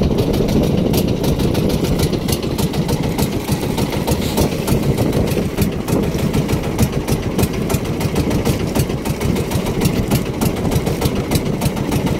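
An outrigger fishing boat's engine running steadily with a low rumble, with fine regular ticks running through it.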